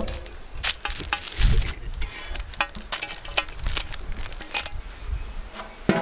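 Irregular clinks, knocks and crunches of cooking work with metal utensils and vessels, some with a brief metallic ring, over a low rumble.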